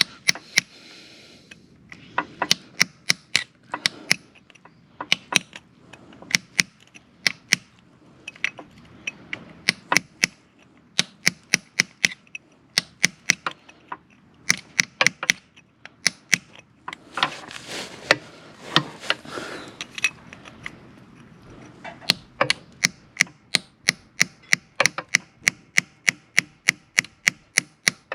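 Hammer striking a steel tool set against a rounded-off motorcycle oil drain bolt, sharp metal-on-metal blows in runs of about two to three a second with short pauses between runs. The bolt is stripped from overtightening and is being knocked round to break it loose.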